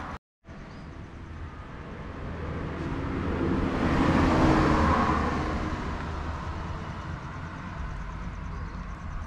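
A motor vehicle passing by: engine and tyre noise swell to a peak about four to five seconds in, then fade away.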